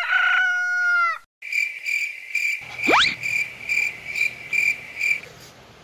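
A rooster crowing once, ending on a falling note, then crickets chirping in an even rhythm of about three chirps a second. About three seconds in comes a quick rising whistle sweep.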